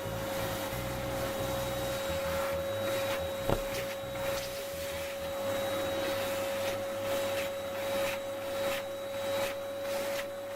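Excalibur EX-21 electric scroll saw running with a steady hum and whine, with one sharp click about three and a half seconds in.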